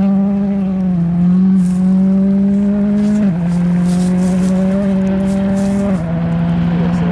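Rally car engine running at high revs under load on a dirt stage, its note holding steady and stepping down in pitch three times, about a second, three seconds and six seconds in. Short hisses of loose dirt and gravel spraying from the tyres come through in the middle.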